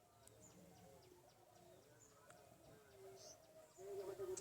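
Near silence, with faint birds chirping and faint distant voices in the background.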